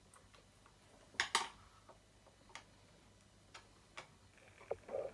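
Small sharp metal clicks from handling the pole saw's head: two close together about a second in, then fainter single ticks roughly a second apart, as the slackened chain and the tensioning Allen key are worked.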